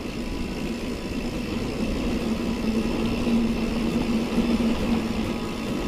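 Wind and rolling rumble on the microphone of a mountain bike riding down a steep concrete lane, with a steady low hum setting in about a second and a half in.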